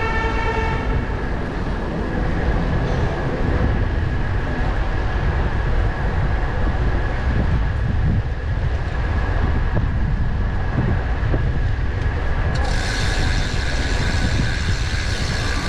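Wind rushing over the microphone and city traffic noise heard from a moving bicycle, with a thin steady high tone throughout. A high squeal sets in about three seconds before the end.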